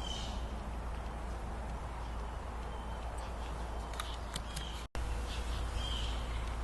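Short high bird chirps repeating every second or two over a steady low hum and hiss, with a few light metallic clicks about four seconds in as small hardware is handled, and a split-second dropout just before five seconds.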